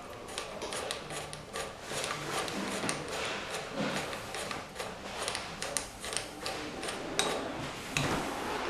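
Metal tool clinks, knocks and scraping at an irregular pace as a puller is fitted to the front crankshaft pulley of a Jaguar V12 engine.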